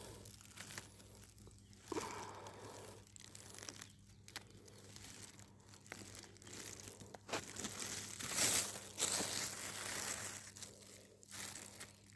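Leaves of an Indian borage (omavalli) plant rustling and crinkling as they are handled and plucked by hand, with small irregular snaps and crackles and a busier bout about eight seconds in.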